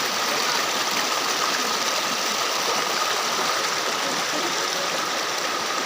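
Waterfall's falling water rushing, a steady, even hiss without breaks.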